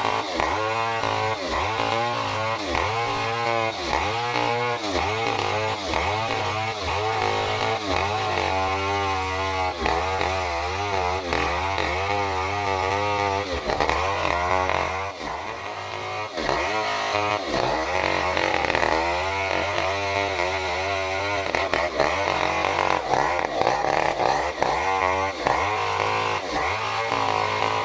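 Stihl 070 two-stroke chainsaw running under load as it rips lengthwise through a durian trunk, its engine note rising and falling over and over as it works the cut. It eases off briefly about halfway through, then picks up again.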